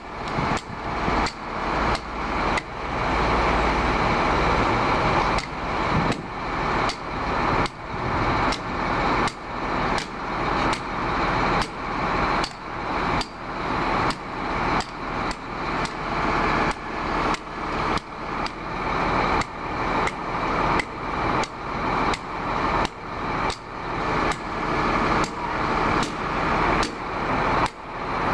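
Hammer striking steel, about one and a half blows a second, each blow ringing briefly, as a steel protection chain is fastened at the rim of a wheel loader's tyre. A steady hum runs underneath.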